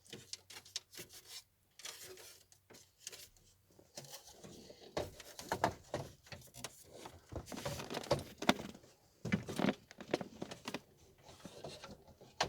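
Irregular clicks, taps and rustles of hands handling parts and wiring close to the microphone, busier and louder from about halfway through.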